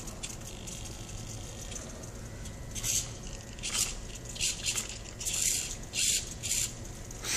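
Small hobby servos of a 3D-printed plastic robot arm moving in a string of short, hissy bursts with light rattling, about six of them from about three seconds in.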